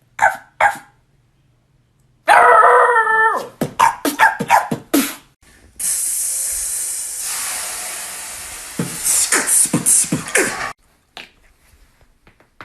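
Beatboxer's mouth sound effects imitating a dog: two short calls, then a longer wavering call about two seconds in, followed by clicks, a long hiss from about six seconds, and a run of quick pops and clicks.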